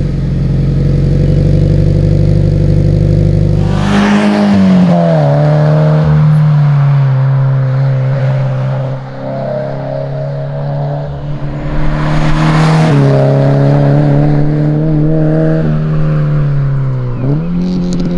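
Toyota 86's FA20 flat-four through a Remark R1 Spec titanium catback exhaust: a cold start at a steady high idle. About four seconds in, the note drops and the car is heard driving, its exhaust pitch stepping up and down several times.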